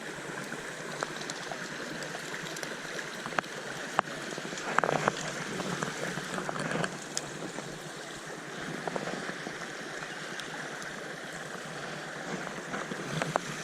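A small stream's water running steadily, with a few light clicks and knocks over it.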